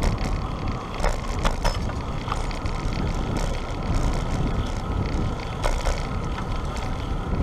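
Bicycle on the move: steady rumble of wind and road noise on a rider-mounted action camera, with a few sharp rattling clicks about a second in and again near six seconds.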